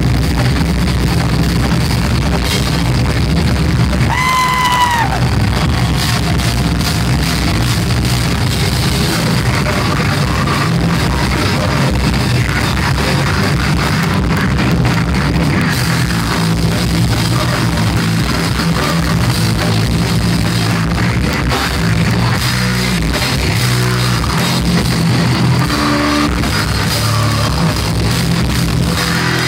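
Heavy metal band playing loud live: distorted guitars, bass and drum kit, with a brief high note that bends down about four seconds in.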